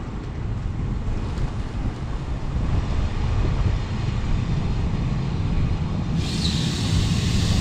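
Double-deck regional passenger train arriving at a station platform, its cab car in front: a low rumble of rolling wheels that slowly grows louder as it draws near. A louder hiss joins about six seconds in, as the cab comes alongside.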